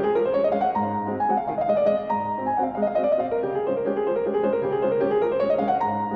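Background music played on piano, with quick runs of notes climbing and falling over a steady lower line.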